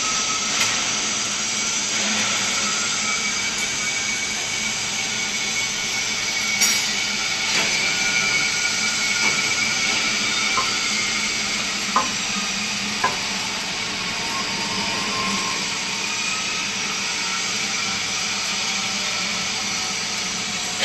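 Steady hissing workshop machine noise with a faint whine running through it, broken by a few short sharp clicks.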